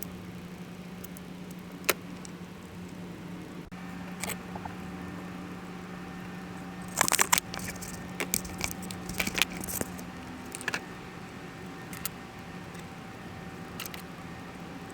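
Metal tools and small metal parts clinking and jingling: a single sharp click about two seconds in, then a cluster of clicks and jingles from about seven to ten seconds in, over a steady low hum.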